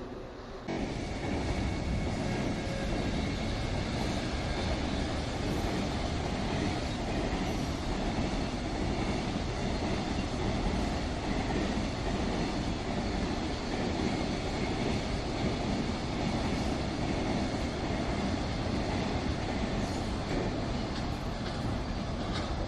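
A train passing close by: a loud, steady rumble of wheels on rail that starts suddenly about a second in and holds without a break.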